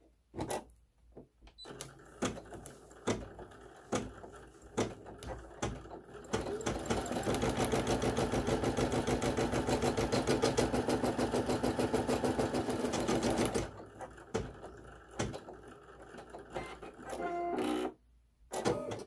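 Brother PE800 embroidery machine stitching a border on felt. Scattered single stitches come first, then about seven seconds of rapid, even stitching, and it slows back to separate stitches near the end.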